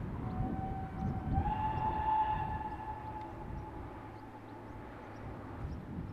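Steam whistle of the Prussian T18 tank locomotive 78 468, one long blast. It steps up slightly in pitch after about a second and fades away over the next few seconds, over a low rumble.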